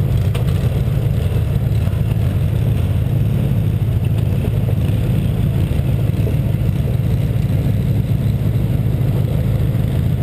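Pickup truck engine running steadily at low speed, heard close up from the front of the truck, with a rough noise from tyres rolling on a gravel road.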